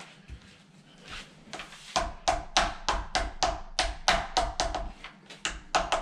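A quick run of sharp knocks, about four a second, starting about two seconds in and stopping just before the end. It is a door-knob latch being tapped into its bore in the edge of a wooden door.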